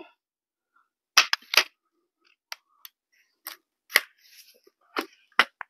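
Daisy 840 multi-pump air rifle's mechanism being handled and worked after the rifle has failed to shoot, giving about ten sharp, irregular clicks.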